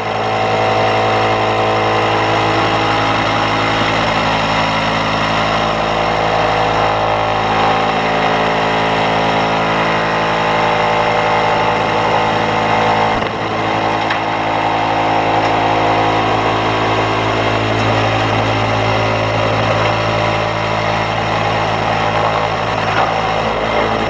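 Air-conditioning condenser machinery running: a steady, loud electrical hum with rushing air noise over it.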